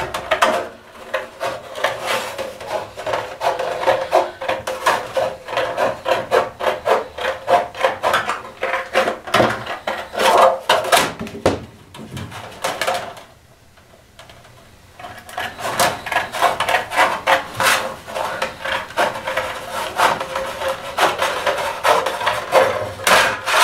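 Hand tin snips cutting sheet metal along a curved marked line: rapid, repeated crunching strokes of the blades through the metal. The strokes pause for about two seconds midway while the snips are repositioned.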